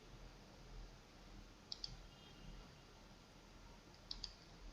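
Two faint double clicks of a computer mouse, about two seconds apart, over near silence.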